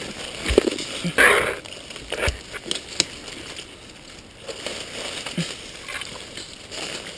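Dry leaves and twigs crackling and brushing against clothing and gear as a person pushes on foot through dense forest undergrowth, with irregular footfalls and a louder swish of branches about a second in.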